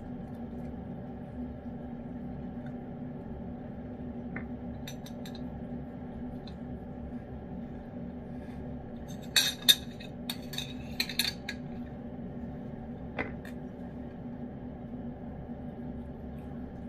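A spoon clinking and scraping against a ceramic dish of wet cat food: a cluster of sharp clinks about halfway through, with a few lighter taps before and after, over a steady low hum.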